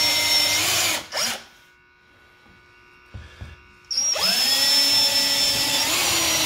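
Cordless DeWalt drill with a countersink bit boring pilot holes into a wooden corner brace. The motor runs steadily, stops about a second in after a short blip, then spins up again with a rising whine about four seconds in and runs on steadily.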